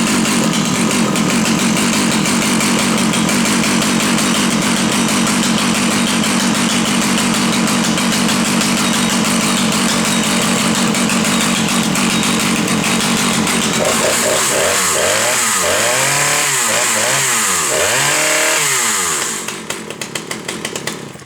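Husqvarna 2100 XP 100 cc two-stroke chainsaw running steadily at high speed for about 14 seconds. It is then revved up and down several times and drops to a quieter, pulsing idle near the end.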